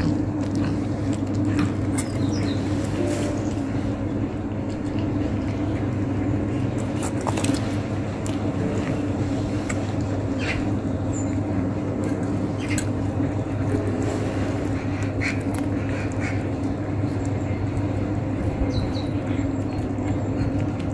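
A cat chewing and crunching a cooked chicken wing, with scattered sharp clicks, over a steady low hum.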